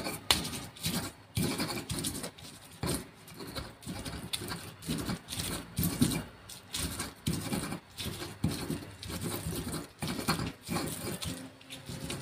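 Stone pestle (ulekan) crushing and grinding chillies, shallots and garlic in a stone mortar (cobek): uneven rubbing and pounding strokes, about two a second, with sharp clicks of stone on stone.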